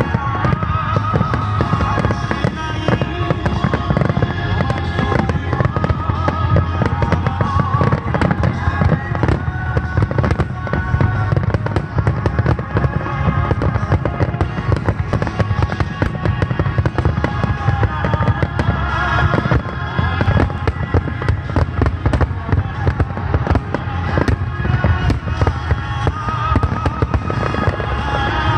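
Fireworks bursting and crackling in a dense, continuous barrage, with music playing alongside.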